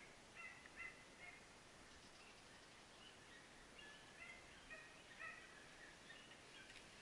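Faint barking of small hunting dogs baying on a wild boar: short high yelps in irregular clusters.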